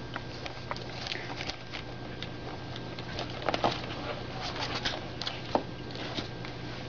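Five-week-old pug puppies playing and tussling: a run of small irregular scuffs and clicks, a few of them sharper, over a steady low hum.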